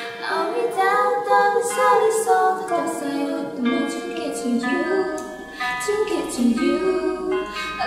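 A woman singing a slow melody with long held notes, over a soft backing of sustained chords.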